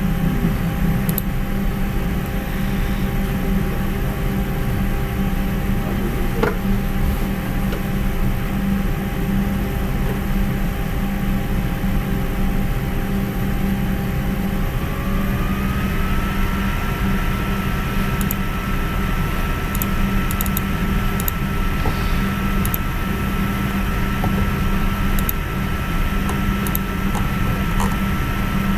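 Steady machine hum, like a fan or motor, with a constant rushing noise under a few whining tones. About halfway through, the tones glide up slightly in pitch and settle there. A few faint clicks come in the second half.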